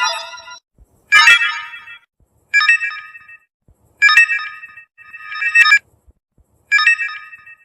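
Samsung phone notification tones: a series of about six short, bright electronic chimes, each under a second long, separated by brief silences.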